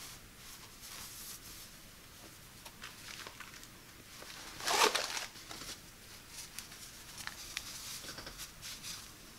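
Hands handling and unfolding cotton kitchen towels: soft, scattered fabric rustling, with one louder rustle about halfway through.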